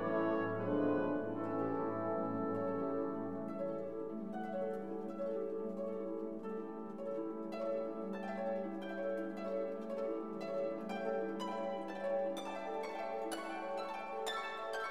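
Instrumental background music: plucked string notes over held, bowed string tones, with the plucked notes coming thicker and brighter from about halfway through.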